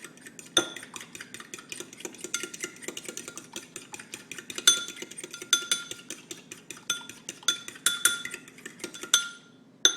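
Eggs and milk being beaten in a bowl with a metal utensil: rapid clinking strokes against the bowl, each with a short ring, that stop near the end, followed by a couple of clinks.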